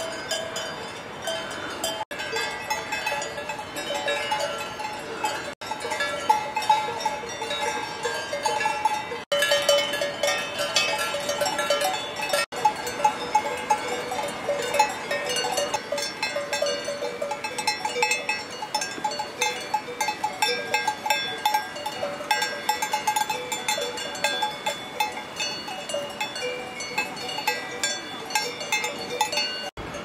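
Many cowbells on grazing cattle clanking and jangling irregularly, several bells overlapping at different pitches. The sound drops out for an instant a few times.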